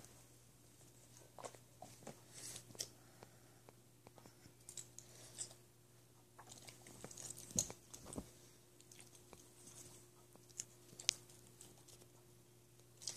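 Faint rustling, mouthing and small clicks of a kitten play-biting and pawing at a Boston terrier, with a few sharper ticks, over a steady low hum.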